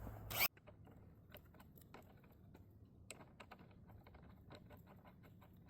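A short, loud burst of noise in the first half second that cuts off abruptly, then faint, irregular light clicks and taps.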